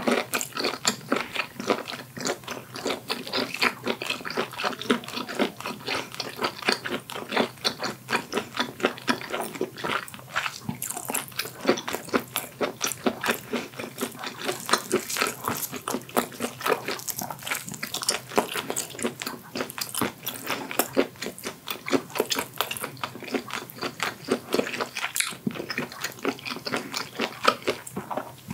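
A person chewing blanched octopus close to the microphone: rapid, continuous chewing made of many small irregular clicks.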